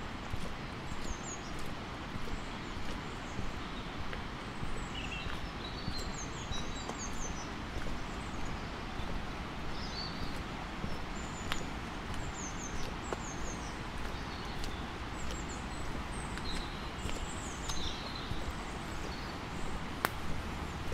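Footsteps walking at a steady pace along an old road surface, with small birds calling in short, high chirps throughout.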